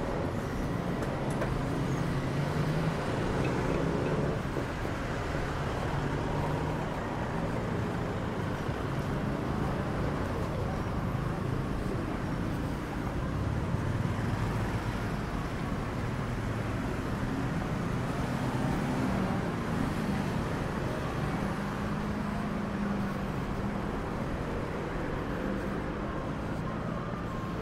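Street traffic: the engine hum of passing vehicles over a steady rumble of road noise, swelling and easing as vehicles go by.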